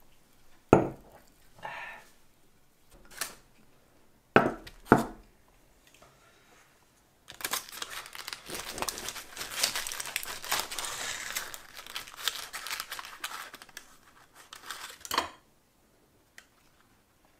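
A knife sawing through a chocolate-glazed, sprinkle-covered pastry in a paper case: dense crackling and crinkling for about eight seconds that stops abruptly. It is preceded by a few sharp knocks on a wooden tabletop in the first five seconds.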